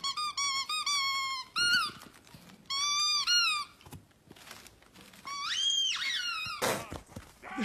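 A dog's squeaky plush toy squeaking as the dog chews it: a quick run of short high squeaks, more squeaks a couple of times after, and one longer squeak that rises and falls near the end.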